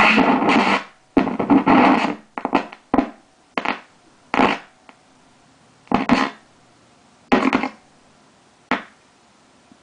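FM radio from a Pioneer SX-780 receiver being tuned across the dial: about nine brief snatches of music and voices from passing stations, each cut off by a quiet gap, and coming further apart towards the end.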